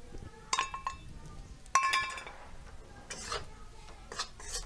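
Steel utensils clinking twice against a steel kadai, each clink ringing briefly, about half a second and two seconds in, the second louder. From about three seconds in comes a run of short scraping strokes as a steel spatula stirs atta and gram flour in the pan.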